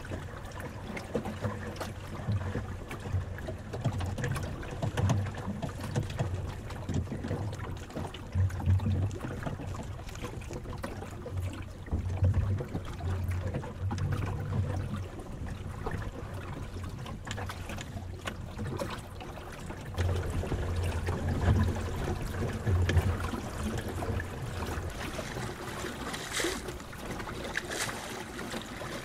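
Water rushing and lapping along the wooden hull of a small open sailing dinghy under way, with splashes near the end. Wind gusts buffet the microphone on and off.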